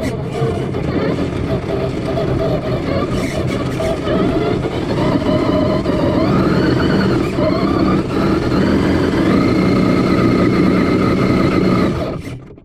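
Electric RC truck driving, its motor and drivetrain whining with a pitch that climbs with speed, dips once about seven seconds in and climbs again, over the rough noise of the tyres and chassis; it cuts off suddenly near the end.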